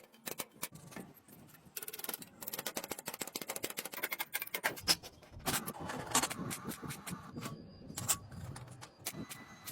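A busy run of sharp clicks, taps and knocks, irregular and often in quick succession, loudest about five seconds in and again about eight seconds in.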